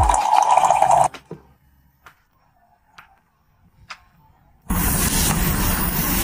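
Countertop hot-water dispenser pouring a stream of warm water into a ceramic mug for about a second, stopping abruptly. Then near silence with three faint ticks, and from a little past halfway, loud steady sizzling of bean sprouts being stir-fried over high heat in a pan.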